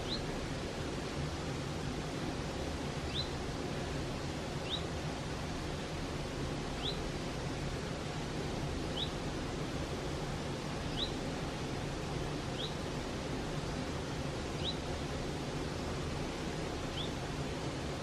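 Mountain stream rushing steadily over rocks. A bird's short, high, rising call repeats about every two seconds above the water.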